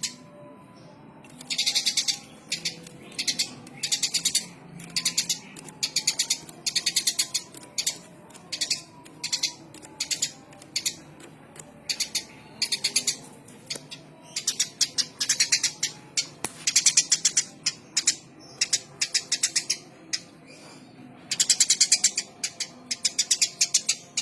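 Eurasian tree sparrow chirping energetically in repeated bursts of fast, high chirps, some bursts running a second or more, with short pauses between them.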